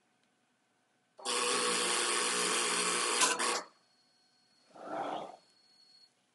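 Fronius CMT push-pull torch's wire drive running steadily for about two and a half seconds as the wire searches for the plate's edge, then cutting off suddenly. A shorter, softer whir follows about a second later.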